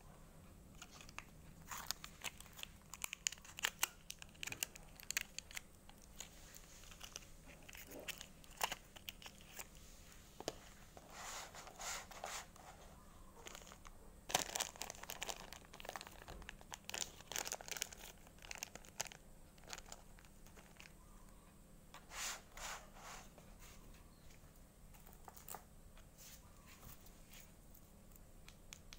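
Small sweets being handled and set into a divided platter: scattered light clicks of candies against the dish, with bursts of wrapper crinkling and tearing.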